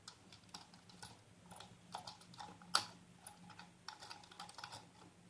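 Light scattered clicks and clinks of small hardware being handled: a nut being fitted onto the bolt through a ceiling fan's down-rod clamp, with one sharper click about halfway through.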